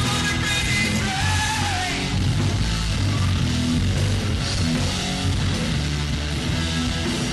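Live rock band playing electric guitar, bass guitar and drums together, with a held, wavering note in the first couple of seconds.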